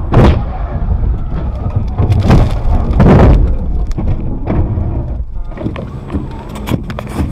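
Car crash heard from inside the car: a loud bang just after the start, two more heavy thumps about two and three seconds in, then a rough rumble with scattered knocks and rattles as the car runs off the road across rough grass.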